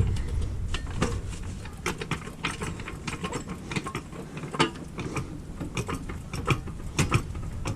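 A jack being worked under the car's suspension to raise it: a string of irregular metallic clicks and clunks, a few louder knocks among them.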